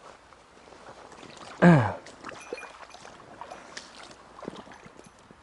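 Low running-water noise of a stream with scattered small clicks and knocks. About a second and a half in, one short, loud vocal sound that falls in pitch, like a grunt or sigh.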